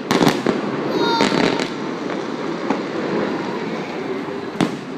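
Fireworks going off: a string of sharp bangs, several close together in the first two seconds and a single one near the end.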